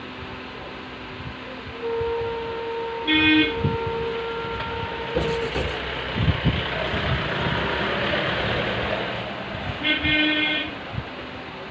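Street traffic going by, with a vehicle horn tooting briefly twice, about three seconds in and again near the end. A few light knocks come in the middle.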